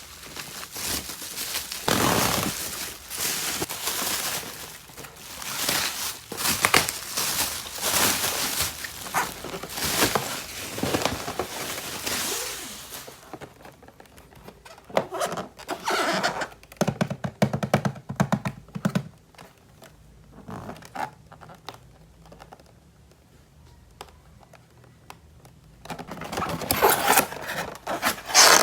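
Plastic toy packaging and parts being handled: dense rustling and tearing with many small clicks and taps, thinning out to scattered clicks midway, with a short low buzz a little past the middle before the rustling picks up again near the end.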